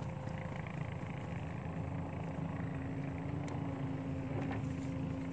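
A steady low motor hum, with a steady higher tone joining about two seconds in.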